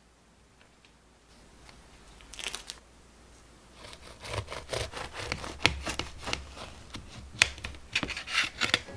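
A serrated knife sawing through a large cream-filled choux puff, its crisp baked shell crackling and rasping in a run of short strokes from about four seconds in.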